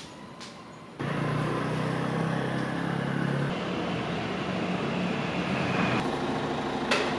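Street traffic with a motor vehicle engine running close by, a steady low hum that comes in abruptly about a second in over quieter street ambience. A short sharp click near the end.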